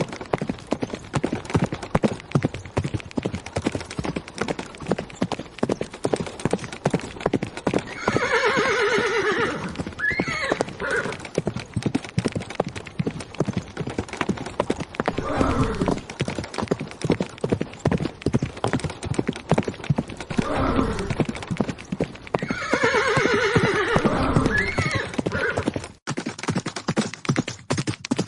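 Horses galloping, a dense rapid pounding of hooves, with a horse whinnying twice, once about a third of the way in and again near the end. Just before the end the hoofbeats cut abruptly to a sparser, crisper tapping.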